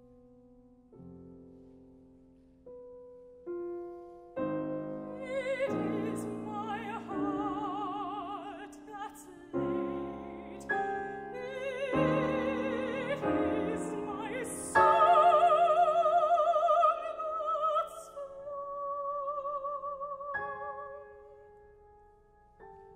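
Soprano singing a classical art song with a wide vibrato, accompanied by grand piano. A few soft piano notes open it, the voice enters about four seconds in, climbs to its loudest high notes a little past the middle, then falls away to a softer held note.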